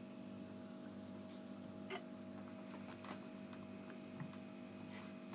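Quiet indoor room tone: a steady low hum with a few faint, short clicks or taps, the clearest about two seconds in.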